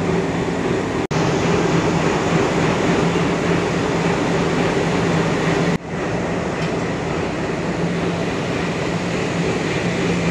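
Diesel locomotives idling, among them a WDG3A freight loco, a steady low drone with a hum; the sound drops out for an instant twice, about a second in and near the middle.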